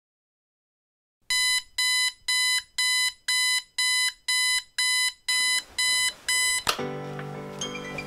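Electronic alarm clock beeping, about a dozen short beeps at roughly two a second, cut off suddenly with a click as it is switched off. Soft music begins right after.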